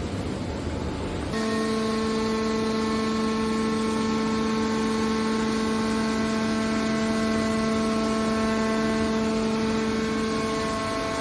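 Steady machine hum with a fixed pitch and a stack of overtones, cutting in abruptly about a second in over a low rumble.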